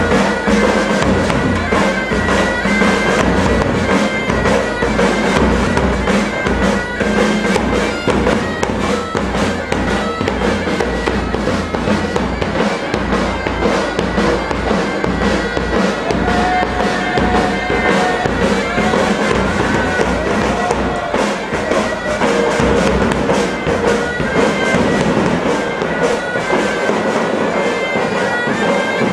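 Pipe band playing: bagpipes sound a melody over their steady drone, with drums beating along throughout.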